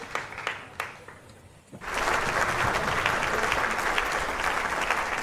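Applause: the clapping thins out and almost stops in the first second and a half, then swells back in full about two seconds in and holds steady.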